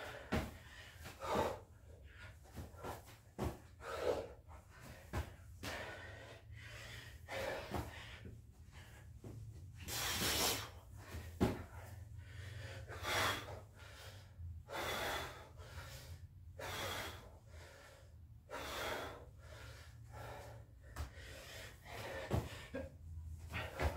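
A man breathing hard and gasping from exertion during burpees, the breaths coming every second or two and growing louder from about ten seconds in. A few sharp thuds come from feet landing and hands dropping onto the rug.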